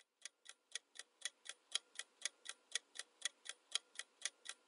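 Clock-tick sound effect of a quiz countdown timer: steady, even ticks, about four a second.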